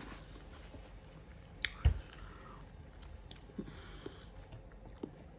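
Close-up chewing and mouth sounds of a person eating, with a few short sharp clicks and one louder thump about two seconds in.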